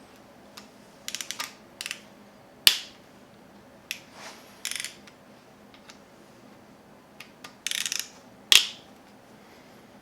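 Hand ratchet clicking in three short runs as the bolts of a Gen 4 Hemi's camshaft thrust plate are loosened, with two sharp metallic clinks, the loudest sounds, of parts or tools being set down.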